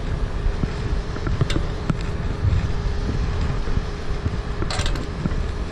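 Wind buffeting the microphone high on an aerial ladder, a steady low rumble with a faint steady hum underneath. A few sharp clicks break through, twice early and once near the end.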